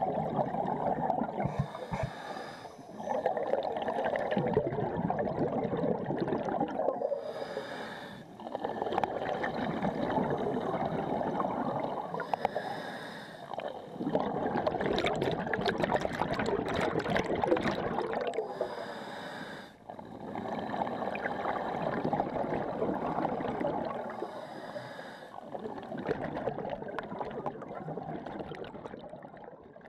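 Scuba diver breathing through a regulator underwater: a short hiss on each inhale, then a long rush of exhaled bubbles. Five breaths come roughly six seconds apart, and the sound fades out at the end.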